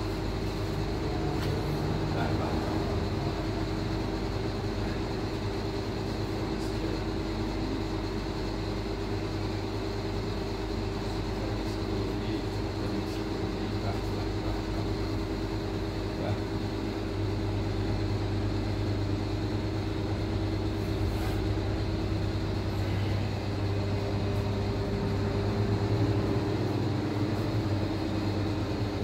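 A steady low mechanical hum with a couple of held tones, like a motor or engine running.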